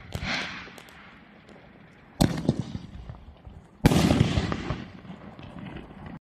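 Winda 'Black Site Armaments' consumer firework shots: a launch thump with a hiss as it climbs, a sharp bang about two seconds in, then a louder bang near four seconds followed by about a second of crackle that fades away before the sound cuts off suddenly.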